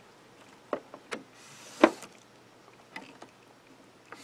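A few light plastic clicks and knocks as the print-head carriage and ink hoses of a Canon Pro-10 printer are handled by hand, with one sharper click a little under two seconds in.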